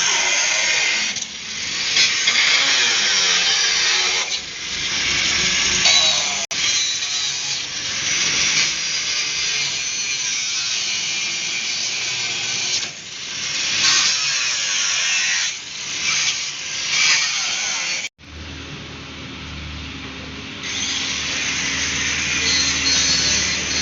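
Power tool cutting the steel of an old pickup, running loud with brief dips as the load changes. About 18 seconds in it breaks off suddenly, and a quieter steady hum with hiss follows.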